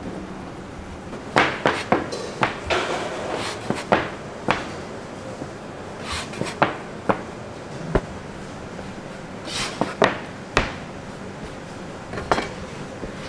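Irregular sharp knocks and clacks of hand tools on a work surface during youtiao preparation, about a dozen spread unevenly, over a steady low hum.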